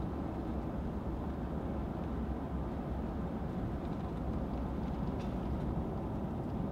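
Steady low rumble of wind buffeting the microphone in open storm country, with no clicks or changes.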